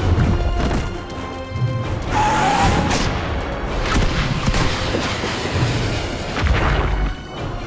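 Action-cartoon soundtrack: dramatic action music mixed with several deep booming thuds.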